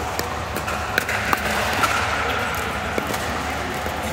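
Pickleball play: a few sharp, irregularly spaced pops of the ball off paddles and the court, over steady background noise.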